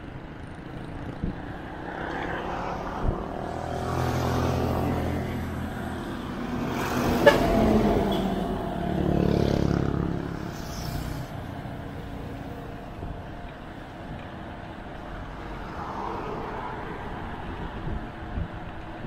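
Motor vehicles passing, their engine sound swelling and fading twice, loudest about four and nine seconds in, with a sharp click around seven seconds in.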